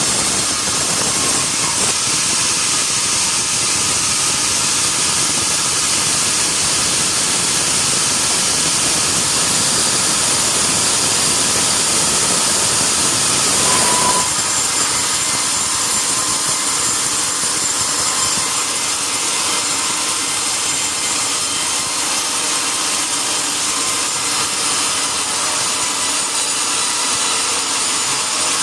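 Sawmill saw cutting through a mahogany log: a steady, loud noise of the blade in the wood, which thins out about halfway through.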